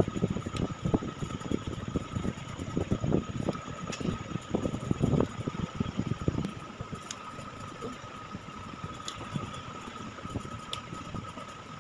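Soft, irregular handling knocks and rustles as hands press balls of spiced mashed potato flat into patties on a steel plate, over a steady background hum with a constant thin whine. The handling sounds thin out after about six seconds.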